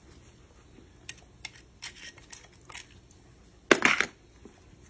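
Small clicks and taps of hands and a tool against a goose lawn statue, then one short, loud scrape about three-quarters of the way in.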